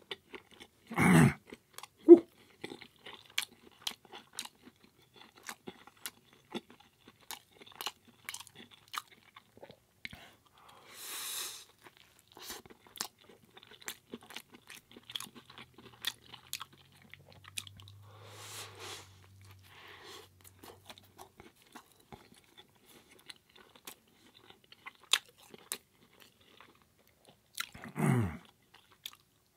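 Close-miked chewing and biting of a curry burrito in a soft tortilla, with many wet mouth clicks and smacks. Two louder sounds falling in pitch come about a second in and again near the end.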